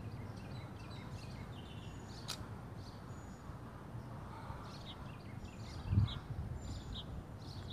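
Small birds chirping here and there over a faint low background, with one sharp click about two seconds in and a short dull thump about six seconds in.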